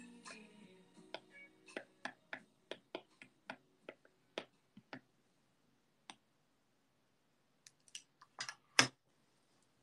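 Light, sharp typing clicks and taps on a device, about two to three a second, stopping about five seconds in. After a pause comes a short cluster of louder taps near the end, the loudest a single knock just before it ends.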